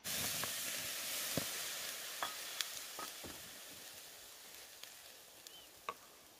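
Food frying and sizzling over a fire. The sizzle starts suddenly loud and dies down slowly, with a few light clicks, likely from a utensil.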